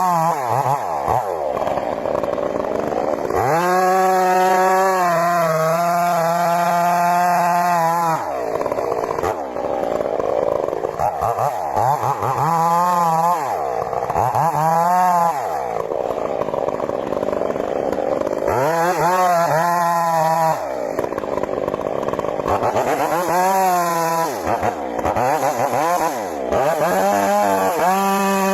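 Chainsaw running and cutting, revving up to full speed and dropping back again and again. About three seconds in it is held at high speed for some five seconds.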